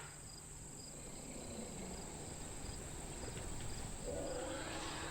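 Faint insect chirping, a short high note repeating at an even pace, over low outdoor background noise. About four seconds in, a louder, noisier sound swells up.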